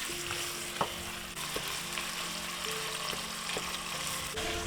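Meat pie filling sizzling as it fries in a pan, with a few light clicks of a spoon being stirred through it. Soft background music underneath.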